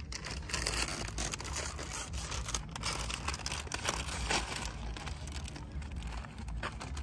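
Wind buffeting the microphone outdoors: an uneven low rumble with a hiss over it, and a few faint knocks.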